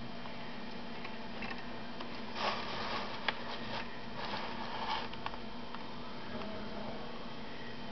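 Handling noise: two short rubbing scrapes and a few light clicks from a hand on the miniature's base, over a steady background hum.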